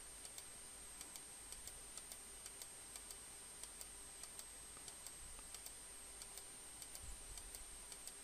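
Faint computer mouse clicks, uneven, about two or three a second, over a low steady hiss.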